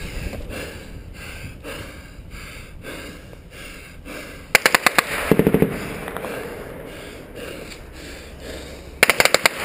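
Two short bursts of close automatic gunfire, rapid sharp shots, one about halfway through and another starting near the end, with fainter cracks before them.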